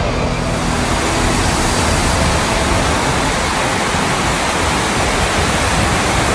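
Steady rush of river white water tumbling over rocks in a gorge.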